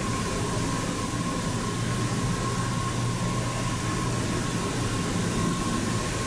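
Steady background hum and hiss with a thin, constant high tone, unchanging throughout.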